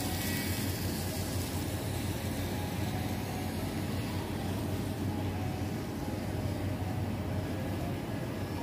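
Kato N-scale model train running on its track: a steady whirring noise with a low hum underneath.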